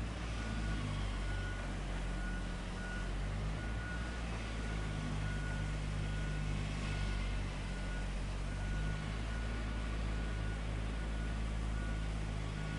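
Heavy construction machine's engine running steadily, with a backup alarm beeping on and off at one high pitch.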